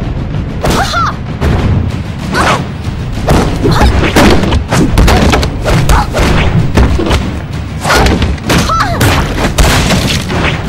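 Fight sound effects for an animated kung fu brawl: a quick string of thuds, whacks and booms over action music, with a few short shouts.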